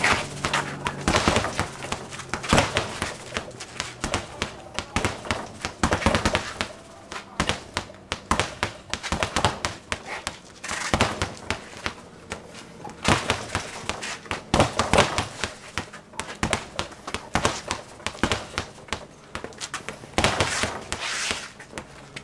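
Gloved fists striking a hard-inflated large speed bag hung on a short strap (a dingle ball bag), sharp slaps coming in rapid irregular flurries broken by brief lulls every few seconds.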